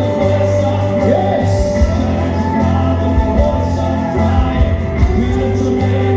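Worship music with held chords and a steady low bass, a voice singing or calling out over it.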